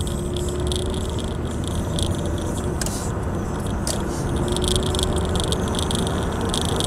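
Car driving at a steady speed on a winter road, heard from inside the cabin: a steady low engine and tyre rumble, with intermittent high-pitched rattling and a few sharp clicks.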